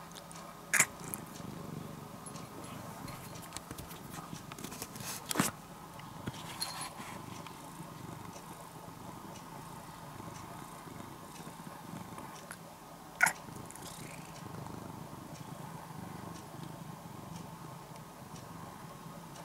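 Domestic cat purring steadily close up, with three short, sharp sounds standing out over the purr.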